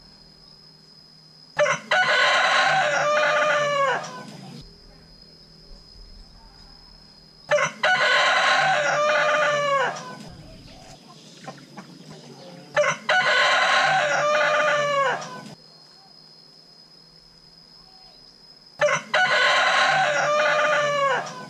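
A rooster crowing four times, about every five to six seconds; each crow opens with a short sharp note and runs into a long call that bends down in pitch at the end. A faint steady high whine is heard between the crows.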